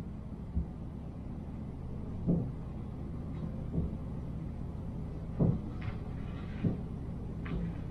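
A cat jumping and pawing at a closed door with a lever handle, trying to open it: several soft thumps spread through, with a brief scratching rattle about six seconds in, over a steady low hum.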